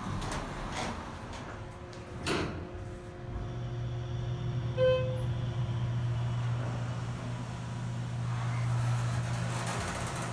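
Schindler hydraulic elevator: the doors slide shut with a knock about two seconds in. A few seconds in, the hydraulic pump motor starts up and keeps a steady low hum as the car rises, with one short beep soon after it starts.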